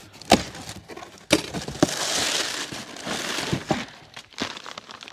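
A cardboard shipping box being torn open and crumpled brown packing paper rustling as the wrapped item is pulled out. A few sharp cardboard snaps come first, then a long dense rustle.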